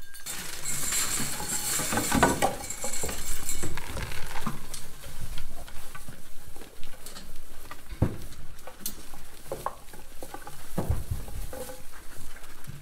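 Dry hay rustling and crackling, densest in the first few seconds, then goats feeding at a metal hay rack, pulling hay with scattered knocks and clinks against the rack.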